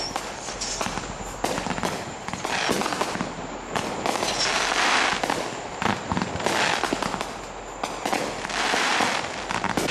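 Aerial fireworks going off in quick succession: a steady run of sharp bangs. About halfway and again near the end, swells of dense crackling come from crackling stars.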